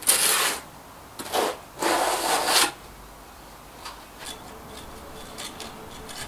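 Trowel scraping mortar on a plasterer's hawk and against the brick window reveal: three scraping strokes in the first three seconds, the last the longest, then a few faint scrapes and taps.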